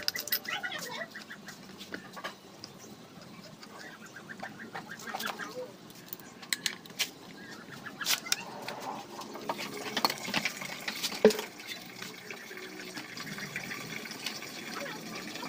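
Metal parts of a Yamaha Mio scooter's dismantled CVT clutch clinking and knocking as they are handled, with a locking pliers clamped onto the clutch shoe assembly. Sharp clicks come irregularly, the loudest about 11 seconds in, with clucking in the background.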